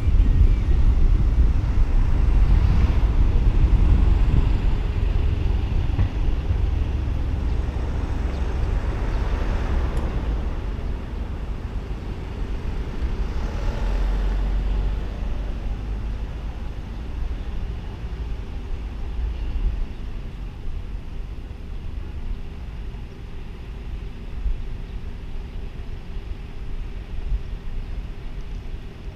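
A car driving slowly along a street, its low engine and road rumble easing as it slows and stops, with a couple of other vehicles passing close by. About halfway through, the rumble drops and then settles into a quieter idle-level traffic hum.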